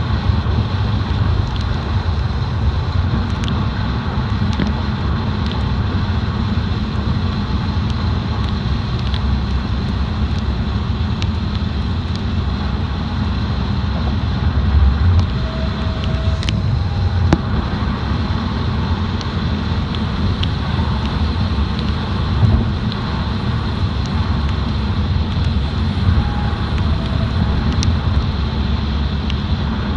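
Car driving, a steady low rumble of road and engine noise with occasional faint clicks.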